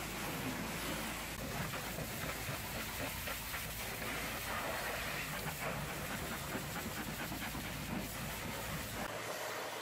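High-pressure hot-water washer jet blasting against a vehicle's wheel, wheel arch and mudflap: a steady hiss of spray with water spattering on rubber and metal. A low steady hum under it drops away about nine seconds in.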